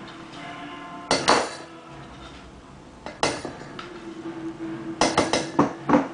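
Metal kitchen utensils clinking and knocking against a saucepan and dishes, with short ringing after each hit: a pair of knocks about a second in, one at about three seconds, and a quick run of several near the end.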